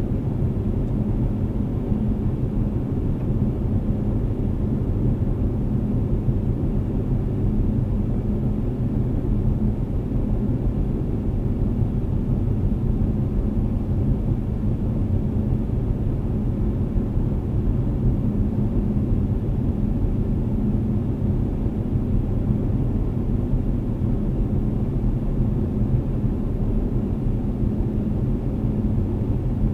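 Car cruising at highway speed, heard from inside the cabin: a steady low rumble of tyre, road and engine noise with a faint steady hum.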